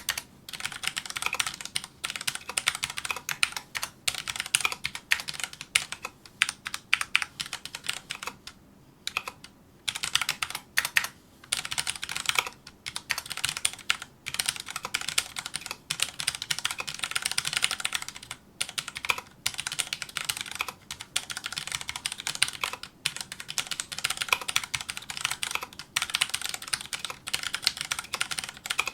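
Fast, continuous touch-typing on a Filco Majestouch2 mechanical keyboard with Cherry MX Brown switches: rapid key clicks in long runs, broken by a few short pauses.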